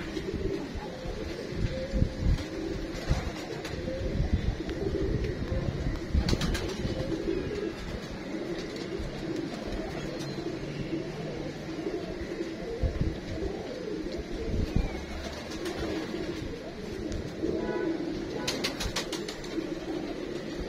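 Domestic pigeons cooing over and over, with low bumps and a few brief clicks, about six seconds in and again near the end.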